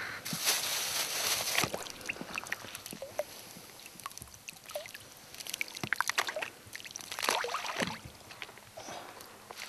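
Splashing, sloshing and dripping of shallow river water as hands scoop and toss soaked black-bread groundbait into it. There are two longer spells of splashing, one just after the start and one from about six to eight seconds in, with small drips and plinks between them.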